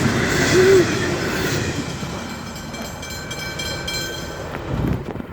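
A diesel railcar running through at speed and moving away, its sound fading steadily, with the wheels clicking over the track several times.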